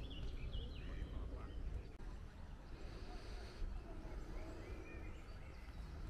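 Outdoor ambience: birds chirping now and then over a steady low rumble.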